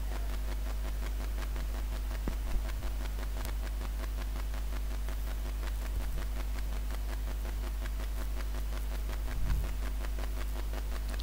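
Steady low hum with faint hiss: the recording's background noise, with no speech. A brief soft low sound comes about nine and a half seconds in.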